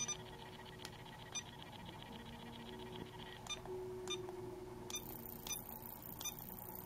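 Ultrasonic skin scrubber giving short electronic beeps, about eight at irregular intervals, over a faint steady hum. A faint high hiss joins about five seconds in.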